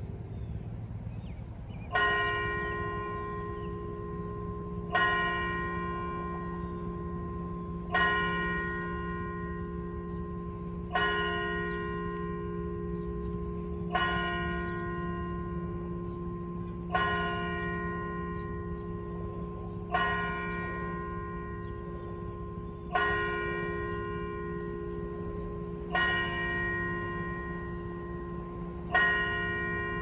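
Church bell tolling slowly, the same note struck about every three seconds, ten strokes in all, the first about two seconds in. Each stroke rings on until the next.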